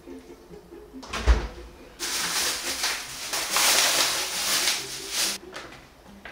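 A single thump about a second in, then a plastic food pouch crinkling and rustling loudly for about three seconds as it is handled and opened.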